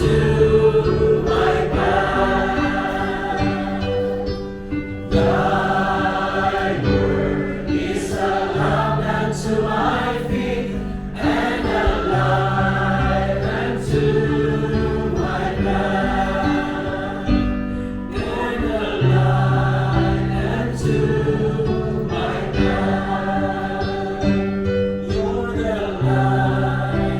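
A group of people singing a hymn together in several voice parts, with long held notes that change every second or two.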